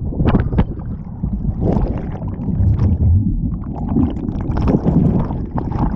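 Churning whitewater heard with the microphone underwater: a low, muffled rumble broken by repeated bursts of gurgling bubbles as the submerged camera is tumbled in the rapid.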